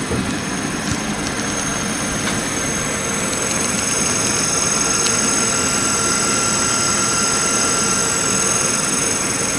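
Yaskawa SGMGH-20ACA61 1.8 kW AC servo motor running on a test stand: a steady whir with several high, thin whines, growing a little louder about three to four seconds in.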